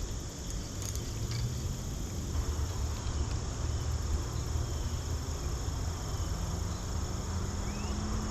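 Insects trilling steadily over a low, steady rumble, with a faint hum that rises slightly in pitch from about six seconds in.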